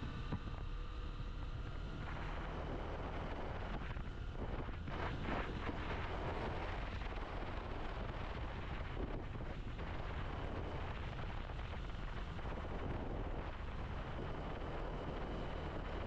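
Motorcycle cruising at about 60 km/h on a wet road: steady wind noise buffeting the microphone over the engine and the tyres on the wet tarmac.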